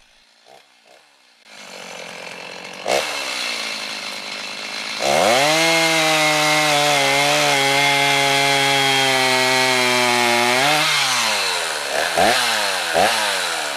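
Chainsaw idling, then opened to full throttle about five seconds in and held for some six seconds while bucking a log, its note sagging slightly under load. It then drops back to idle, with two quick blips of the throttle near the end.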